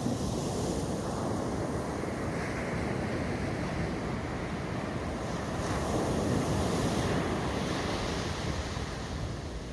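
Continuous rushing noise of wind and water, swelling for a few seconds a little past halfway and easing again near the end.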